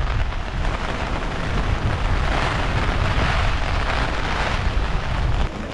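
Typhoon wind buffeting the microphone in a heavy low rumble, over a steady hiss of rain; it drops away sharply about five and a half seconds in.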